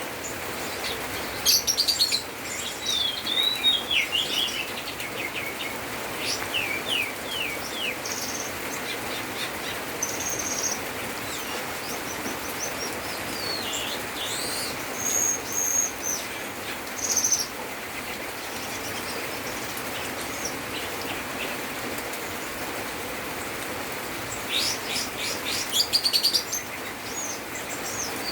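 A cucak keling songbird singing in bursts of varied chirps, whistles and fast trills, with mimicked phrases of other birds worked into its song. The bursts are separated by pauses of several seconds, over a steady hiss.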